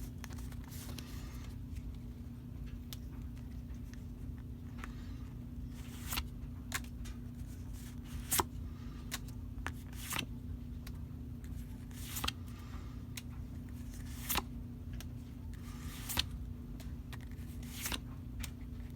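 Pokémon trading cards being handled and flipped through one by one, with sharp snaps every second or two over a steady low hum.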